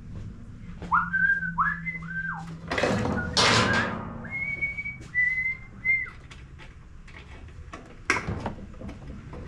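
Someone whistling: a few short notes that slide up and down, then a few higher held notes. A loud rushing burst of noise comes about three seconds in, and scattered light clanks and clicks run through.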